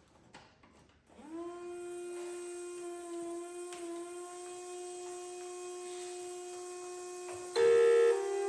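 Homemade Federal Signal Thunderbolt 1003 siren starting up: about a second in, its tone glides quickly up to a steady low pitch and holds. Near the end it switches to a louder, higher tone, as in a high-low signal.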